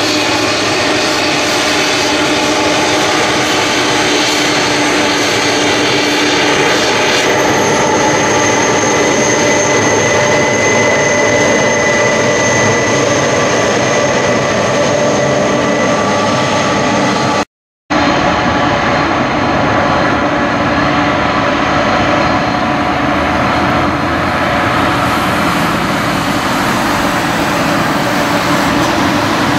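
Boeing 747-400's four turbofan jet engines running at taxi power close by: a loud, steady rumble with high whining tones over it. The sound breaks off for a moment a little past halfway, then carries on.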